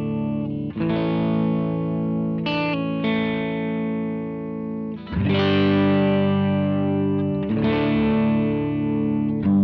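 Electric guitar played through a Line 6 POD 2.0 amp modeler patch and recorded direct. Held chords are struck anew about every two seconds, with one quick higher chord between them, and a slow wavering runs through the sustained notes.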